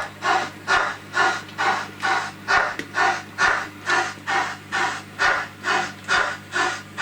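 Digital sound decoder in a model steam locomotive (Hornby Mallard) playing steady steam exhaust chuffs through its onboard speaker, about two a second, over a steady low hum.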